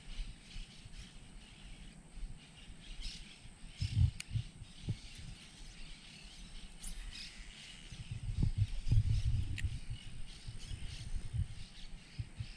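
Birds chirping faintly in open marshland ambience, with low rumbling bursts about four seconds in and again from about eight to ten seconds, and a few sharp clicks.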